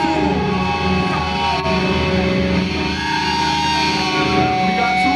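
Live heavy hardcore band playing loud, led by distorted electric guitar with sustained, ringing notes and a few sliding pitches.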